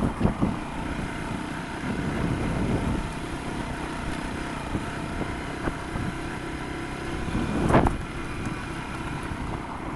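Wind buffeting the microphone, with a steady low motor-vehicle engine hum underneath; a brief louder swell comes about eight seconds in.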